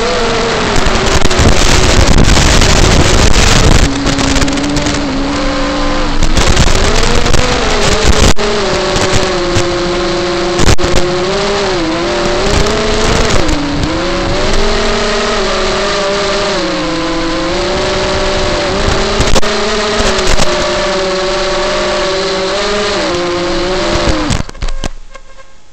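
FPV quadcopter's brushless motors whining, the pitch rising and falling with the throttle through acro manoeuvres, with louder rushing surges on punch-outs. Near the end the whine drops in pitch and the motors spin down.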